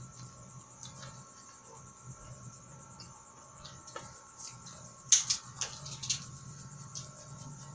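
Close-up eating sounds of boiled sweet corn on the cob being bitten and chewed: small wet clicks and smacks, with a burst of sharp, louder clicks about five seconds in. A faint steady hum with thin high tones sits underneath.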